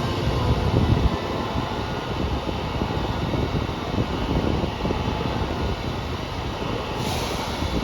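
JR Kyushu KiHa 200 diesel railcar standing with its engine idling: a steady mechanical drone. Car KiHa 200-1551 is giving off an abnormal noise, a fault that took the unit out of service the next day.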